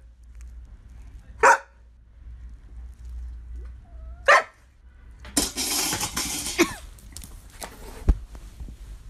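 A large dog barks sharply twice, a few seconds apart. About halfway through comes a second or so of rustling noise, and a single thump near the end.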